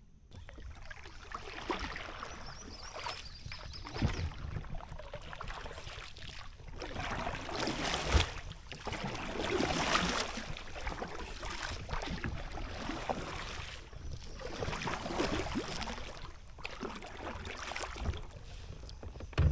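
Kayak paddling: a double-bladed paddle dipping and pulling through the water, its splashing swelling and fading with each stroke every two to three seconds. There are a couple of short knocks along the way and a louder thump at the very end.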